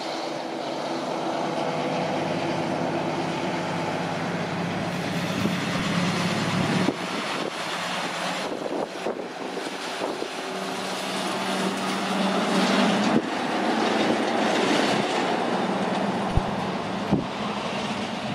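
Heavy diesel truck engines running as trucks drive past, with a steady engine note that breaks off about seven seconds in and returns a few seconds later.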